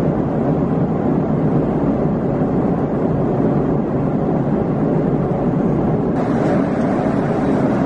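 Steady roar of an airliner cabin in flight: engine and airflow noise filling the cabin, even and unbroken, a little brighter from about six seconds in.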